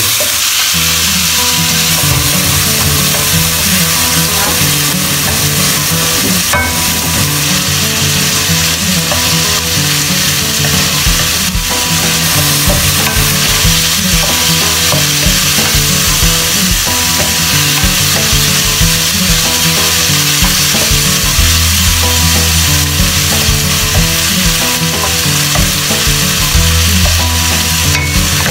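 Chicken, onion and tomato sizzling steadily in hot oil in a nonstick wok on a gas burner, sautéed and stirred with a wooden spatula that scrapes the pan.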